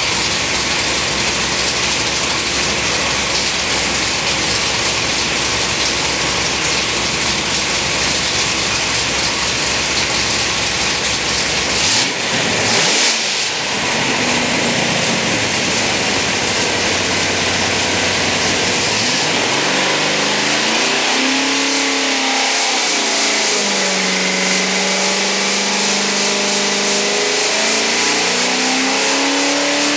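Pontiac 400 V8 bored and stroked to 468 cubic inches, running loud at high rpm on an engine dyno. About twelve seconds in the throttle comes off and the note drops, and in the last third the engine is revved in blips, its pitch rising and falling.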